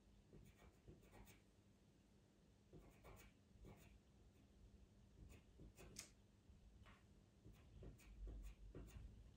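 Pastel pencil scratching on Pastelmat paper: a faint series of short, irregular strokes as fur detail is drawn in.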